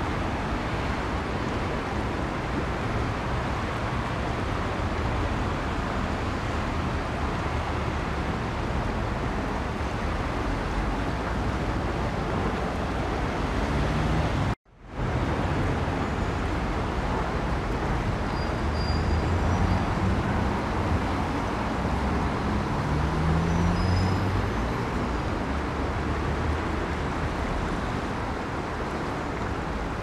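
Steady rush of a shallow river flowing along its bank, with a low rumble of road traffic underneath and an engine rising in pitch about two thirds of the way through. The sound breaks off for a moment about halfway, then resumes.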